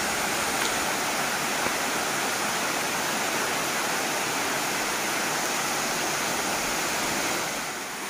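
Waterfall cascading down stepped rock ledges into a pool, a steady rush of falling water, dipping slightly just before the end.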